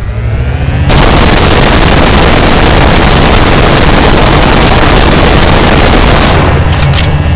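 Minigun sound effect: the rotating barrels spin up with a rising whine, fire a continuous dense burst for about five seconds, then wind down with a falling whine, with a few metallic clinks near the end.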